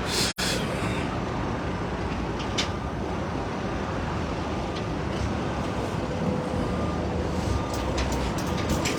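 Heavy vehicle engine running steadily amid traffic noise, with the sound cutting out for an instant about a third of a second in.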